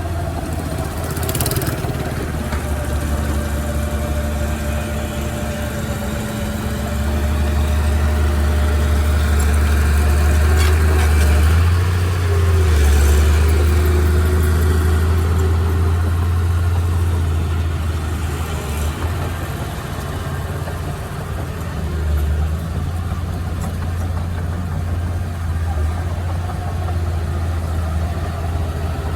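Engine of heavy earthmoving machinery running steadily, its low drone growing louder for a while mid-way and then easing back, with a few sharp clanks.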